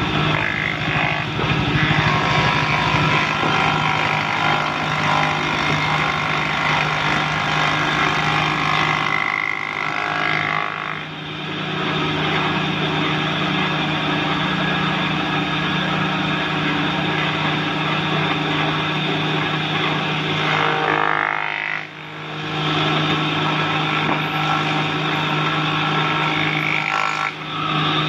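Electric wood planer running steadily with a motor hum while boards are fed through and cut, the noise dipping briefly three times between boards.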